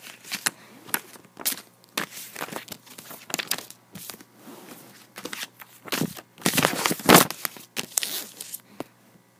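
Plastic Blu-ray case and disc being handled: a run of clicks, crackles and rustles, busiest and loudest about six to seven and a half seconds in.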